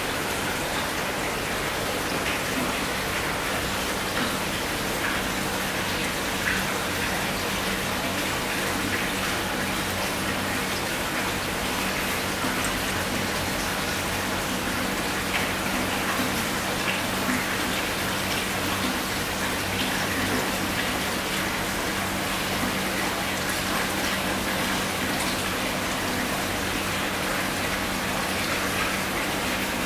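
Aquarium air stones bubbling steadily, a constant watery hiss with a few faint ticks, over a steady low hum.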